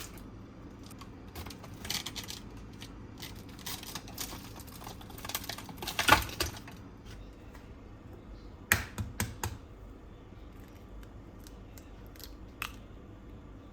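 Scattered small clicks and rustling of handling in a kitchen, louder about six seconds in, with a quick run of four or five sharp knocks about nine seconds in.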